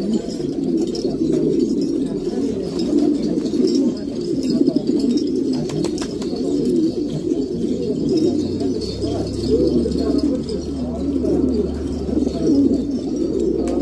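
Many domestic pigeons cooing together in a dense, continuous chorus. A low steady hum comes in a little past halfway.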